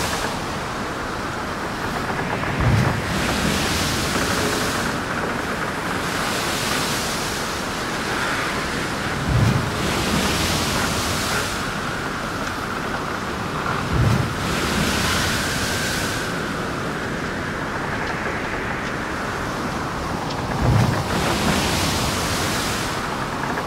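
Stormy surf and wind: a steady rush of wind and water, with four waves breaking about five to seven seconds apart, each a low thud followed by a swelling hiss of spray.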